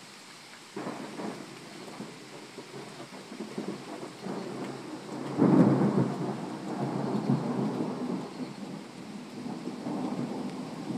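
Thunder rumbling: a sudden onset about a second in, then rolling, with its loudest crack-like swell about halfway through before it keeps grumbling on.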